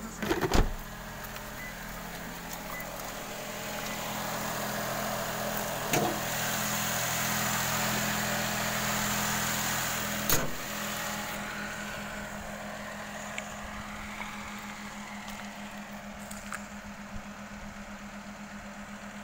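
Small kei car's engine idling steadily. Sharp knocks come about half a second in, around six seconds and around ten seconds, the first the loudest.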